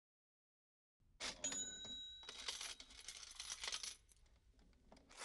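Coins dropping and clinking together, starting about a second in, with a short bright metallic ring among the first clinks and quieter jingling near the end.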